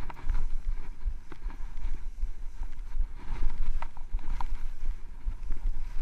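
Skis running through deep powder snow, heard through an action camera's microphone as a steady low rumble of wind and motion noise, with a few short clicks and crunches scattered through.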